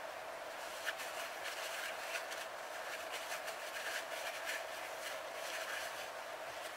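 A paper towel rustling and rubbing in the hands as it wipes oil residue off a glow engine's metal cylinder sleeve: faint, irregular crinkles over a steady faint hum.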